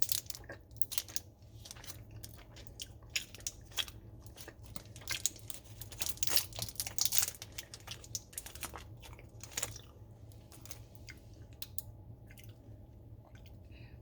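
A person chewing a piece of dark chocolate close to the microphone, with many small crunchy, crackling bites that thin out after about ten seconds.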